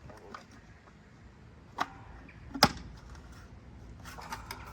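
Two sharp plastic knocks, the second louder, as a clip-in part of a VW T5 rear light assembly is pushed and snapped into place, followed by light clattering of handled parts near the end.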